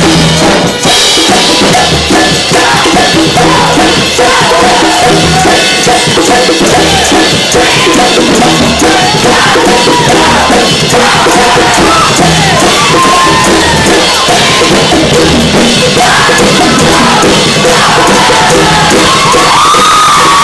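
Loud unplugged jam: a drum kit and hand percussion, cowbell and tambourine, keep a steady beat while many voices sing and shout along, with no amplification because of a power outage.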